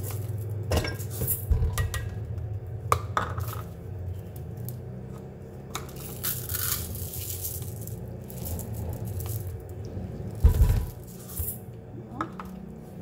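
Dry uncooked rice pouring from a plastic jar into a plastic measuring cup and tipped into an aluminium rice-cooker pot: grains hissing and rattling, with scattered clicks and knocks of plastic. A heavy thump comes about ten seconds in.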